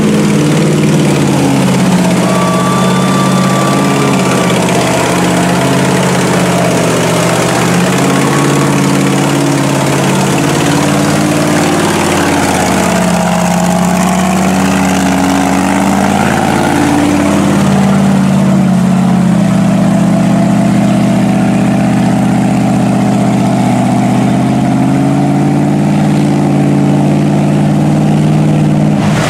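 Big-tire mud truck's engine running hard at high, steady revs while churning through deep mud, its pitch shifting a couple of times.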